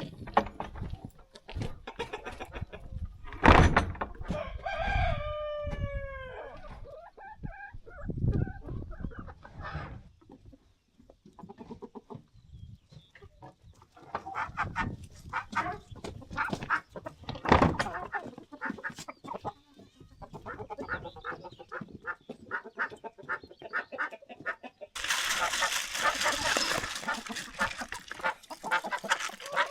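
Chickens clucking around a rooster, which crows once about four seconds in, a long call that falls away at the end, with scattered knocks and scuffs throughout. Near the end a loud hissing rustle starts suddenly.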